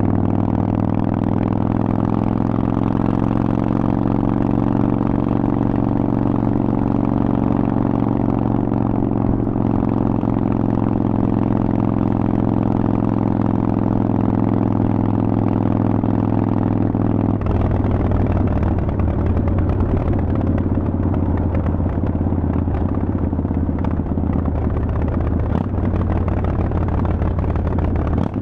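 Harley-Davidson Forty-Eight's air-cooled 1200 cc V-twin running loud through Vance & Hines aftermarket exhaust pipes, holding a steady pitch. About two-thirds of the way through the note changes suddenly to a rougher, less even sound.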